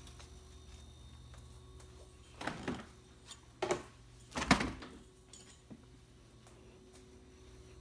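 LG refrigerator running with a steady low hum, the noise that the LG technician puts down to the compressor, which is to be replaced. Partway through come three clunks a little over a second apart, the last the loudest.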